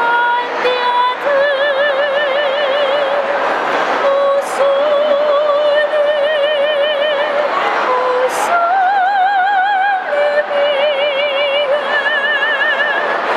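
A female gondolier singing operatically, holding long notes with a wide vibrato and rising to a higher, held note about two-thirds of the way through.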